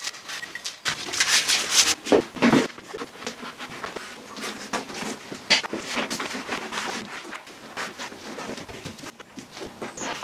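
A fast, jumbled run of workshop handling noises: scraping, rustling and short knocks from hands working on a car body and its parts, sped up with the time-lapse picture.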